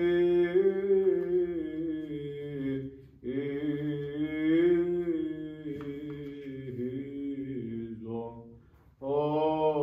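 A single man's voice chanting Byzantine liturgical chant, with long held notes that slide gently in pitch. There is a short break for breath about three seconds in and a longer pause near the end.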